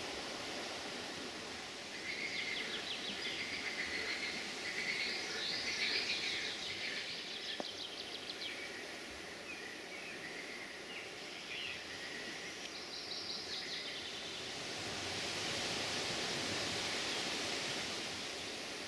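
Birds singing, with repeated chirps and quick trills, over a steady rushing noise; the song falls away about three quarters of the way through, leaving the rushing noise a little louder.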